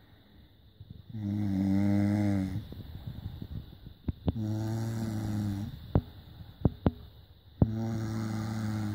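A sleeping person snoring: three snores, each lasting about a second and a half, roughly three seconds apart. A few short, sharp clicks come between the second and third snores.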